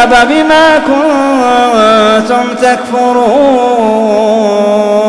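A man's solo voice in melodic Quran recitation, drawing out the ending of a verse ('…takfurūn') in one long chanted line whose pitch wavers and slides down in places.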